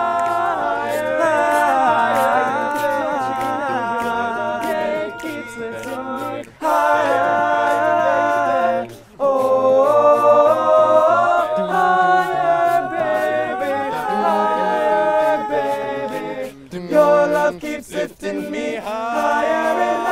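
A male a cappella group singing in close harmony, a lead voice over the others, with two brief breaks and short clipped chords near the end.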